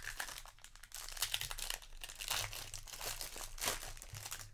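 Foil wrapper of a Magic: The Gathering booster pack crinkling and tearing as it is ripped open and peeled back by hand, a dense run of crackles.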